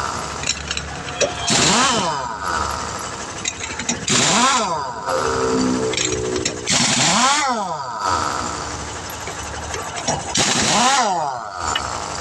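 Pneumatic impact wrench undoing a truck's wheel nuts: four bursts of about a second each, a few seconds apart, the air motor's whine rising and falling over a hammering rattle.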